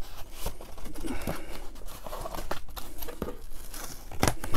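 Cardboard record mailer and shrink-wrapped vinyl LPs being handled: irregular rustling, scraping and light knocks of cardboard and plastic as the records are slid out, with a louder knock near the end.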